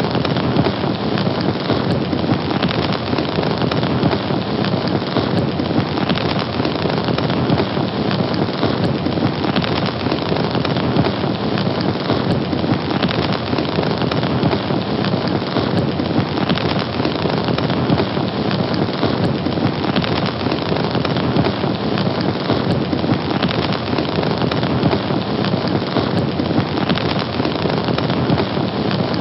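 Fire burning steadily, a dense, even crackle and hiss with no pauses or changes.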